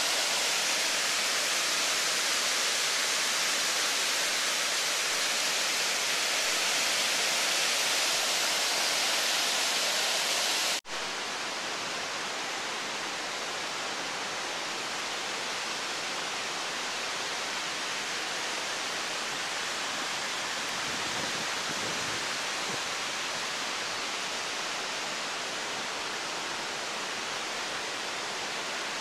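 Waterfall pouring over rock cliffs: a steady rushing noise. About eleven seconds in it breaks off for an instant and comes back duller and a little quieter.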